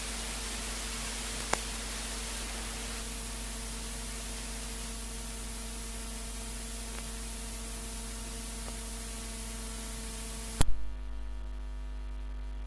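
Steady recording hiss with a constant electrical hum underneath. There is a single click about a second and a half in. Near the end comes a loud double click, after which the hiss stops and only the hum goes on.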